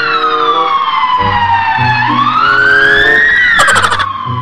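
Siren wailing slowly, falling and then rising again, over background music. A brief rattle sounds near the end.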